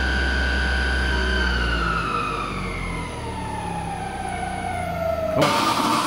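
Motor whine from a Lely Astronaut robotic milking unit: a steady high tone that, about a second and a half in, slowly glides down in pitch over several seconds, with a low hum under it for the first two seconds. Near the end it stops abruptly and gives way to a steady hiss of machine noise.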